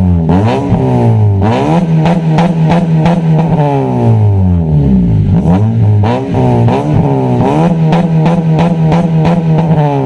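Honda Civic FD's exhaust through an HKS burnt-tip axle-back muffler with dual exits, the engine revved in repeated blips; the note climbs and falls several times, with two longer stretches held at a steady pitch.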